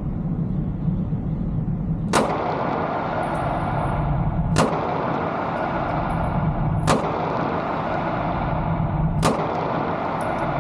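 Taurus GX4 9mm pistol fired four times in slow, evenly spaced shots a little over two seconds apart, over a steady low hum.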